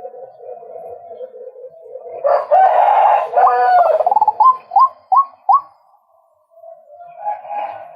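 Male white-breasted waterhen calling. A low run of repeated notes leads to a loud, harsh outburst about two seconds in, which ends in four or five short separate notes. Softer calling follows near the end.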